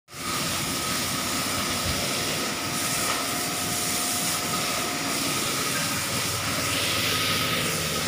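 LG front-loading washing machine with an inverter direct-drive motor in its final spin at about 1000 rpm: a steady whooshing rush of the drum with a faint high whine.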